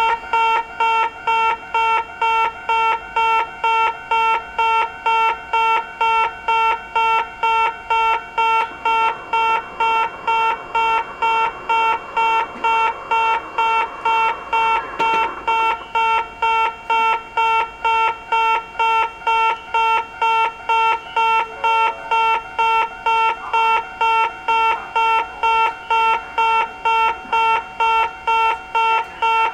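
Japanese railway level-crossing alarm bell ringing steadily, a single electronic 'kan-kan' tone struck about twice a second.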